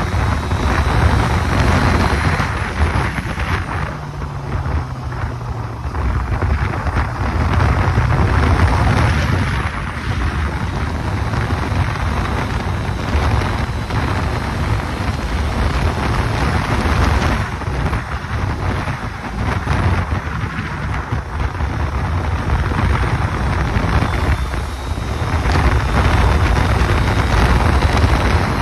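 Honda CB650R's inline-four running on its stock exhaust while being ridden, its level swelling and dipping repeatedly. Heavy wind rumble on the microphone covers much of it.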